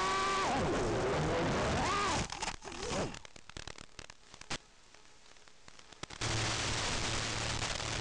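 Audio of an analog FPV video link, recorded on the goggles: static hiss under the Tinyhawk 2 Freestyle's motor whine. The whine falls away about half a second in as the quad comes down on a low battery. Quieter crackling static with clicks and dropouts follows while the video signal breaks up, and from about six seconds in there is loud steady static with a low hum.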